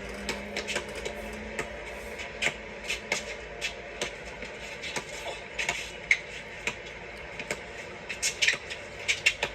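A basketball bouncing on a court during one-on-one play: irregular sharp bounces and taps, about one or two a second, with a quick cluster of them near the end.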